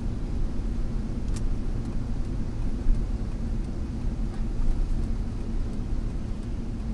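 Steady low rumble of a car driving, heard from inside the cabin, with one sharp click about a second and a half in.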